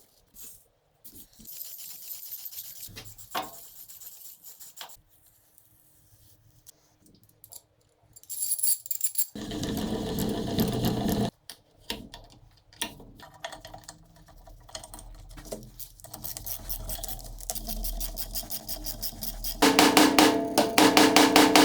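Metalworking shop sounds: scattered clicks and knocks of metal being handled, a loud stretch of machine noise, then a power tool building up and running loud with a fast, even rattle near the end.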